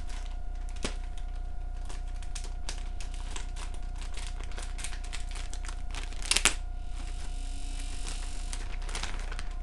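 Plastic wrapping and paper packaging being handled: a run of small crinkling clicks, a louder crackle about six seconds in, then a couple of seconds of rustling. A steady faint hum runs underneath.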